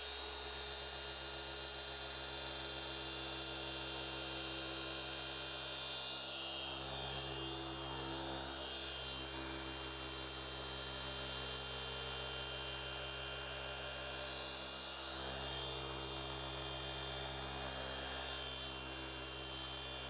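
Cordless orbital car polisher running steadily at a constant speed, its orange medium foam pad working an all-in-one polish over a painted side-mirror cap to cut out marks in the paint.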